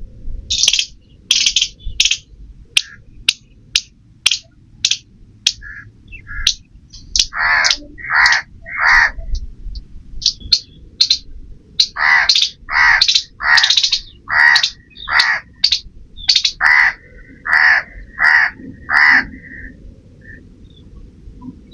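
A crow cawing over and over in a steady series of harsh calls, mixed with shorter high-pitched calls and sharp clicks.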